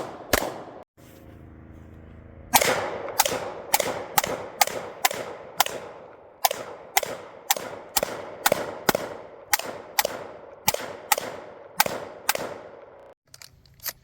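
Rapid gunfire at an outdoor range: a shot, a pause of about a second and a half, then a string of around eighteen sharp shots at roughly two a second. The firing stops about a second before the end, followed by a few light clicks.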